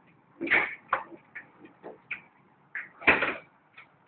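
Hailstones landing: scattered, irregular sharp ticks and knocks, a few a second, with two louder hits about half a second and three seconds in.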